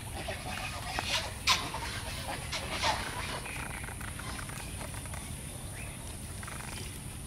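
Poultry calling: a few short, harsh calls about a second in, the loudest at about a second and a half, and a couple more near three seconds.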